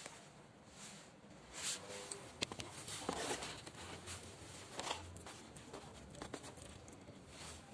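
Handling noise: scattered light clicks and brief scrapes and rustles as a metal satellite-dish mounting bracket and its bolts are handled against the dish and a cardboard box, with the sharpest clicks in the middle of the stretch.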